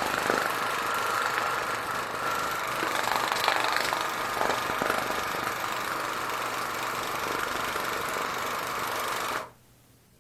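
Waterpik cordless water flosser running, its pump driving a rapid-fire water jet into a tissue and the sink. It switches off abruptly about nine seconds in.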